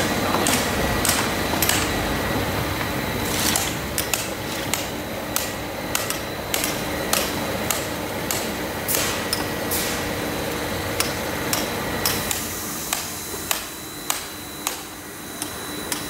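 Hammer blows breaking open scrap lead-acid battery cases by hand, sharp strikes at a steady pace of about two a second from a few seconds in, over a steady machinery hum with a thin high whine.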